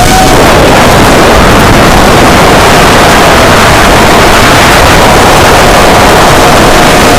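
Rajawali FPV RC plane in flight, heard through its onboard Yi action camera: a steady, loud rushing roar of wind and motor noise that overloads the camera's microphone, with a faint wavering whine from the electric motor underneath.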